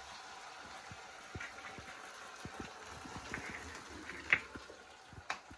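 Eggs and onions sizzling in hot oil in a kadhai: a steady frying hiss dotted with small pops and clicks, with one sharper click about four seconds in.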